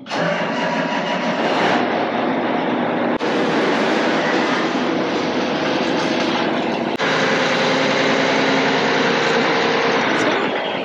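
Tractor engine running loud and steady with a high thin whine over it, just after a call to start it up and run hydraulic remote number one. The sound shifts abruptly about two, three and seven seconds in.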